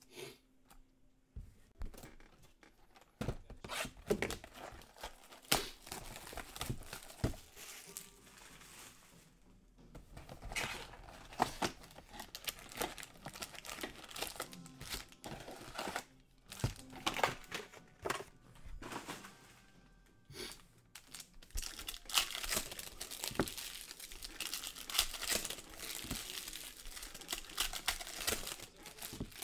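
Plastic wrapping on Panini Select soccer card boxes and packs being torn open and crinkled by hand: irregular crackles and rips, busiest near the end.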